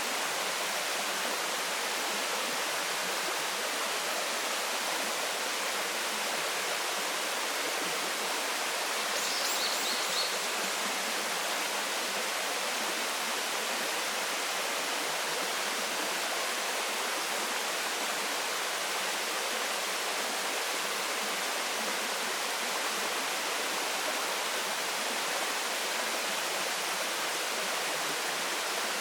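Waterfall water falling and splashing in a steady, even rush. About nine seconds in, a brief high chirping sound is heard.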